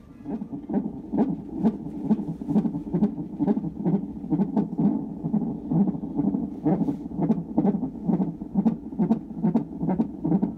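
Fetal heartbeat picked up by a fetal monitor's Doppler ultrasound transducer and played through its speaker: a fast, regular pulsing at about two and a half beats a second, matching the fetal heart rate of about 144 beats per minute shown on the monitor.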